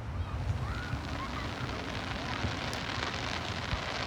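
Fireworks crackling steadily, a dense rain-like sizzle of many small pops, with a couple of faint pops from further bursts later on.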